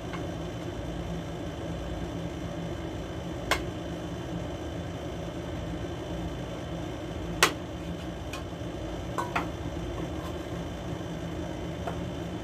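Spoons and forks clinking against plates a few times, sharpest about three and a half and seven and a half seconds in, over a steady machine hum.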